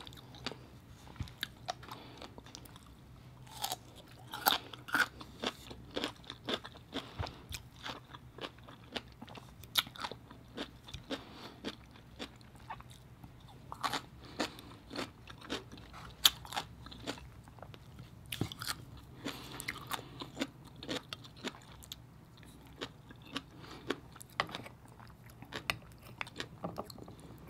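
Crunchy raw cucumber being bitten and chewed close to the microphone: irregular clusters of crisp crunches with short pauses between them.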